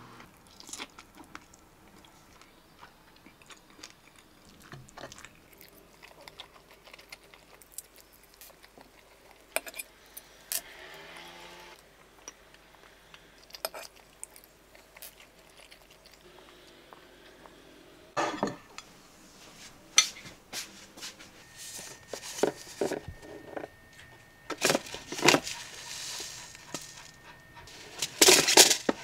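Kitchenware being handled: scattered clinks and taps of dishes and utensils, with louder clattering bursts in the second half.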